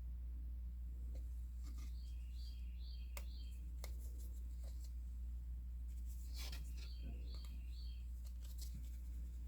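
Steady low electrical hum under faint bird chirps, given twice as a short phrase of three quick notes. A few sharp clicks and a brief crinkly rustle, about three seconds in and again past the middle, come from handling the cross stitch kit's thread packaging.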